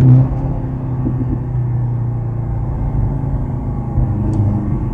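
2023 Mercedes-AMG C43's 2.0-litre turbocharged four-cylinder engine driving in Sport Plus mode: it comes off a rising rev just after the start, the level dropping, then runs steadily.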